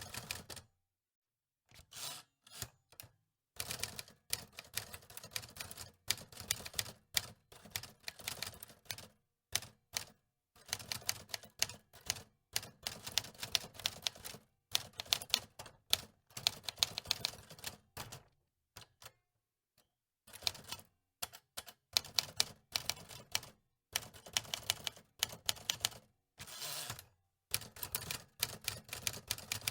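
Typewriter keys clacking in irregular bursts of rapid strikes, with short pauses between the runs.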